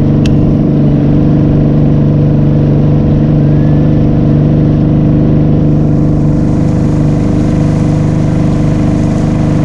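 Outboard motor of a small aluminium fishing boat running steadily at cruising speed, with a constant even drone, under wind and water noise.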